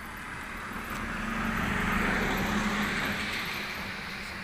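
A road vehicle passing by, its sound swelling to a peak about two seconds in and then fading away.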